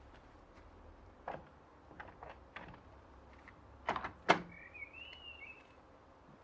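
uPVC conservatory door being swung and closed to test a hinge adjustment: a few light knocks, then two louder thunks about four seconds in, followed by a short high squeak. The door is still rubbing slightly in its frame.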